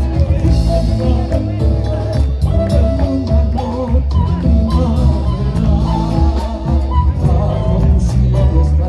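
Live folk band playing a chacarera through PA speakers: acoustic guitar, bombo legüero drum, violin and a strong bass beat.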